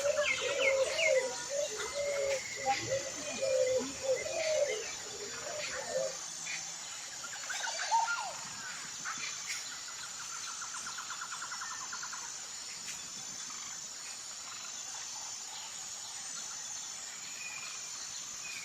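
Birds calling: a quick run of short, arching notes repeated for the first six seconds, then a single rising call and a buzzy trill a few seconds later, over a steady high-pitched whine.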